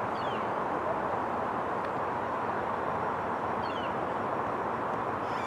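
Steady outdoor background roar of noise with no speech, with a couple of faint, short, high falling chirps.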